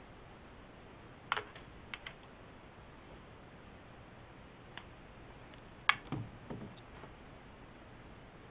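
Sharp plastic clicks from a smartphone being handled and its back cover pressed into place: a loud click about a second in, a pair near two seconds, and the loudest click near six seconds followed by a couple of dull knocks.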